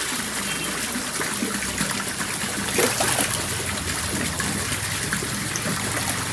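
Steady splashing and gushing of water in a koi tank, where an inflow churns the surface among a crowd of koi, with one louder splash just under three seconds in.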